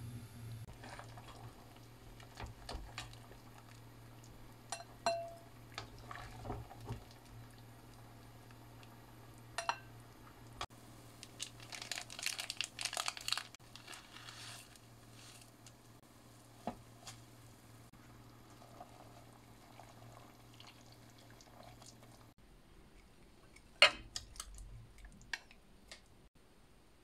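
Kitchen and tableware sounds: scattered clinks and knocks of dishes and utensils, a short spell of rustling and clattering about twelve seconds in, over a steady low hum that cuts off about twenty-two seconds in, followed by a sharp click.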